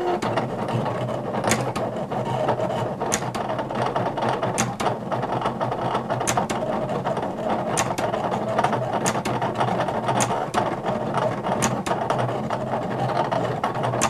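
Silhouette Portrait cutting plotter at work, its motors running loudly as it drives the blade carriage and feeds the cutting mat, with sharp clicks coming irregularly through the steady mechanical whir.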